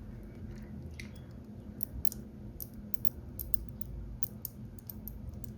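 Number wheels of a combination padlock being turned by hand: a run of small, irregular clicks as the dials detent, getting busier about two seconds in.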